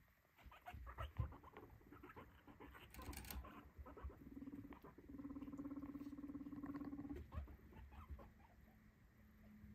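Guinea pigs scampering on a fleece-covered pen floor, their feet pattering and tapping in scattered bursts. About four seconds in, one gives a low, buzzing purr that lasts about three seconds, and a fainter one follows near the end.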